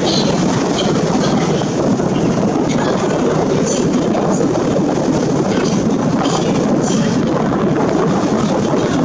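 Steady noise on board a moving harbour ferry: the boat's engine running and water rushing along the hull, with no change in pace.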